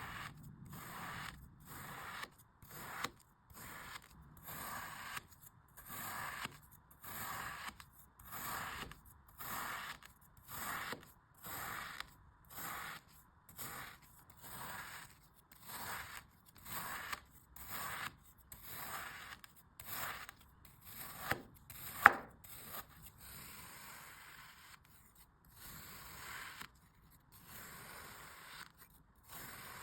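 Packed sand being cut, a stroke about once a second, each cut a short scraping rasp. One sharp click about two-thirds of the way through is the loudest sound, and the strokes after it are slower and softer.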